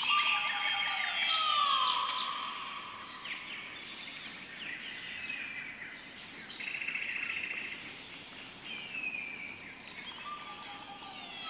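Countryside ambience of birds calling, with short falling calls, over a steady high-pitched insect drone. The same falling call comes back near the end, as in a looped ambience track.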